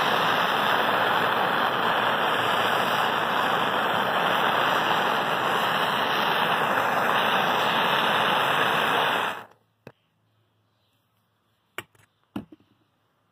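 Gas torch flame hissing steadily against a cement disk. The hiss cuts off abruptly about nine and a half seconds in, and a few faint clicks follow.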